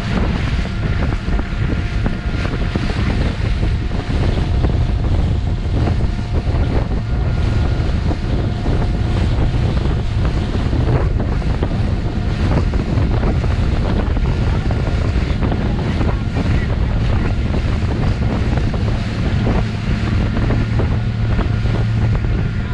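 Wind rumbling hard on the microphone aboard a motorboat running steadily across the lake. A faint, steady engine whine and water noise sit under the wind.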